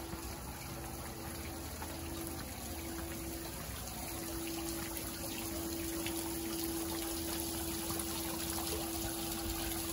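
Backyard pool waterfall spilling into a dunking pool: a steady rush and trickle of falling water, a little louder after about four seconds. A steady hum runs underneath.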